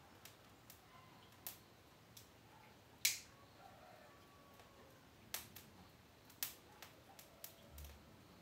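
Faint, irregular sharp crackles and snaps from a bundle of dry soybean stalks held to a lighter flame, the loudest about three seconds in and several more in the second half. The stalks are slow to catch.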